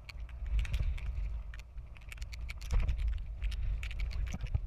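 Wind buffeting the microphone in a low rumble, with irregular sharp ticks of raindrops striking the camera.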